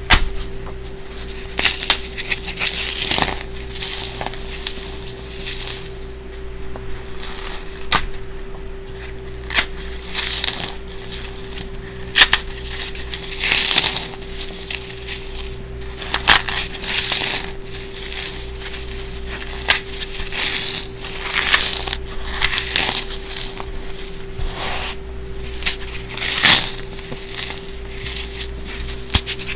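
Gloved fingers crushing a brick of Sahara dry floral foam soaked with baking soda and glitter: irregular crunches and crumbling, with a few sharp cracks. A steady hum runs underneath.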